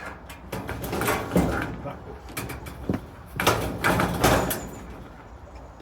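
Irregular metallic knocks and scraping from handling and fastening steel raised-bed panels, a string of sharp knocks and rasps with the loudest cluster a little past the middle.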